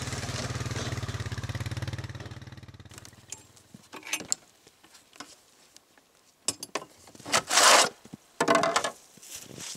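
Honda FourTrax 300 ATV's single-cylinder engine idling, then shut off and dying away about two to three seconds in. After it, scattered knocks and clunks and a few loud scraping rustles as a Stihl chainsaw is unstrapped and lifted off the ATV's steel front rack, the loudest near the end.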